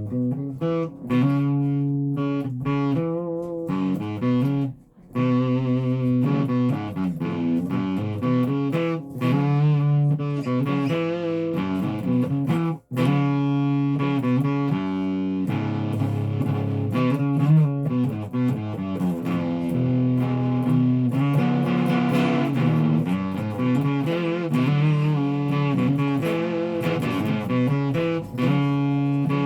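Guitar playing chords, one held chord after another, with short breaks about five and thirteen seconds in.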